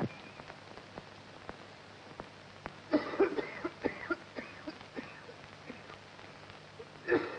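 Crackle and steady low hum of an old 1951 film soundtrack, with a few faint short pitched sounds about three to four and a half seconds in.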